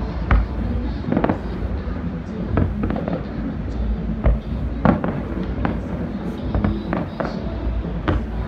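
Aerial fireworks going off in an irregular run of sharp bangs, roughly two a second, over a steady low rumble.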